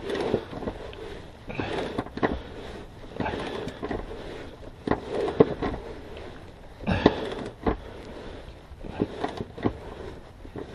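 Hand socket ratchet clicking and knocking in irregular strokes while running up the bolts of a transmission crossmember from under the car. The bolts are tight enough that there is worry they may be stripping.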